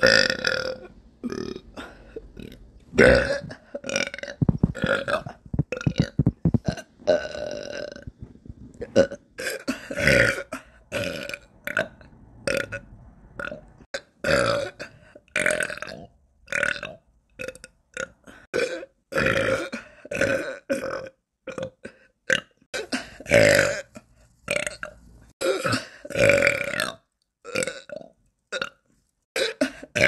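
A young woman belching over and over, dozens of loud burps one after another, some short and some drawn out, with a quick stuttering run of them about five seconds in.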